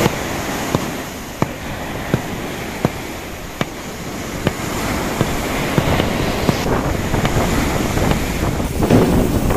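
Waves breaking on a beach, with wind buffeting the microphone, under a sharp click that repeats about every 0.7 seconds. A louder swell of surf comes near the end.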